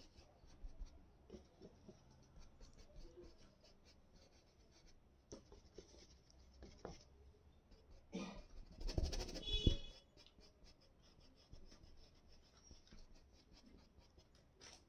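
Paintbrush strokes scratching and dabbing oil paint on canvas, a faint, rapid run of short strokes. About nine seconds in there is a louder brief noise with a squeaky pitched part.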